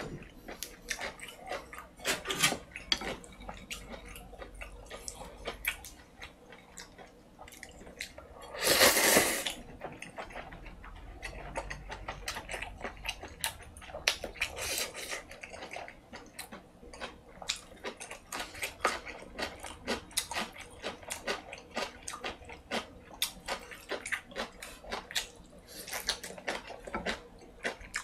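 Close-miked eating of seaweed ramen: steady wet chewing and mouth clicks, with a loud slurp of noodles about nine seconds in and a shorter one near the middle.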